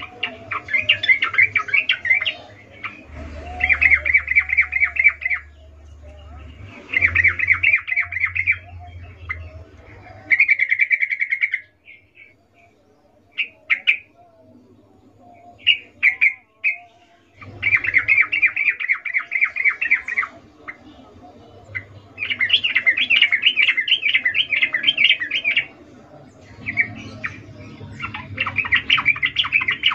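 Yellow-vented bulbul (trucukan), presented as a female in breeding condition calling a male, giving its rapid chattering call in repeated bursts of two to three seconds. About halfway through there is a lull with only a few short single notes before the bursts resume.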